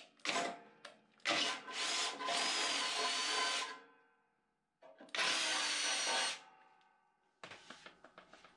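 Cordless drill boring holes through a walk-behind mower's metal deck: two short trigger pulls, then a long run with a high wavering whine from the bit in the metal, a pause, and a second shorter run about five seconds in.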